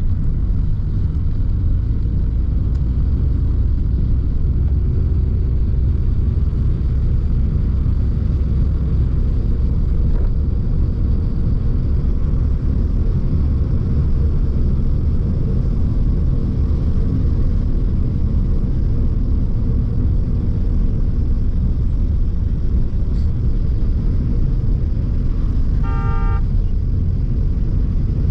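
Steady low rumble of a moving vehicle's road noise, with wet tyres on the road. Near the end a vehicle horn toots once, briefly.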